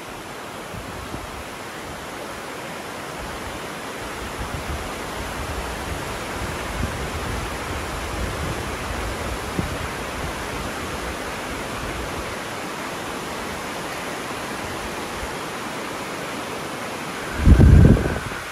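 Steady rushing of river rapids on the Sarapiquí River below. Near the end a brief, loud low rumble lasting under a second rises above the water.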